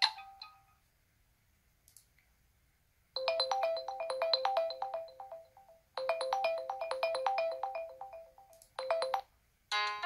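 LG Q7 phone ringtone playing: a short, bright melody of quick notes, heard twice in a row and cut off just as it starts a third time. A different ringtone begins near the end.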